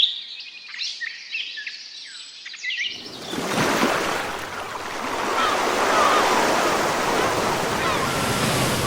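Small birds chirping in quick, high, sliding notes. About three seconds in it cuts abruptly to a steady rush of water, like surf or a waterfall, with a few faint chirps over it.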